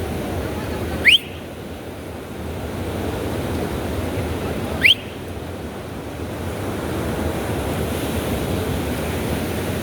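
Ocean surf washing steadily onto a sandy beach, with two short, sharp whistles rising in pitch, about four seconds apart.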